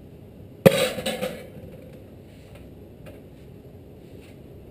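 A metal part set down on the workbench: one sharp knock about two-thirds of a second in, with a brief ringing clatter after it. Then only a few faint ticks as a shop rag wipes the engine's valve seat.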